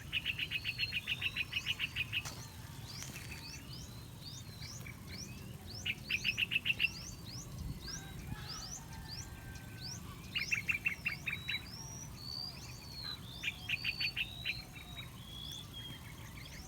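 Wild birds calling in a flock: many short, high chirps throughout, with a fast rattling trill of about ten notes a second heard four times, each lasting a second or two.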